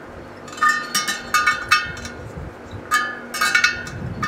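Steel wire spokes of a motorcycle wheel clinking and ringing under a spoke wrench as they are tightened for truing: quick clusters of sharp, pitched metallic pings.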